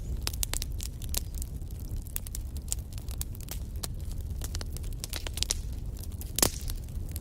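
Wood fire burning in a fireplace: a low steady rumble of flames with frequent sharp crackles and one louder pop about six and a half seconds in.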